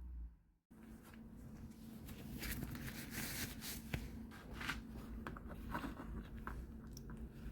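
Light handling noises, scattered small clicks and rustles, over a steady low hum, after a brief dropout about half a second in.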